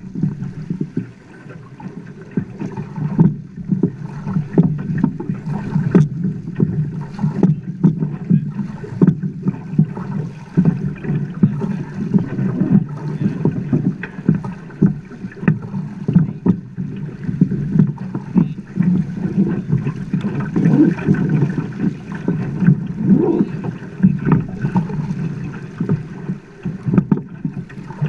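Choppy river water slapping and splashing against the side of a drifting boat: a steady low wash broken by frequent, irregular slaps.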